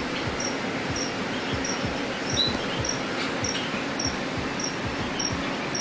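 A cricket chirping steadily, a short high chirp about every 0.6 seconds, over a steady background hum.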